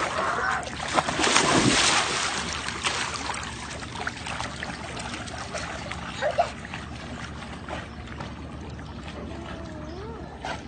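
A dog jumping into a swimming pool: a loud splash about a second in, then water sloshing and splashing as it swims.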